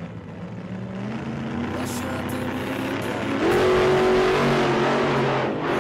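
Cruiser motorcycle engine approaching and passing close by, louder from about three and a half seconds in, with music playing underneath.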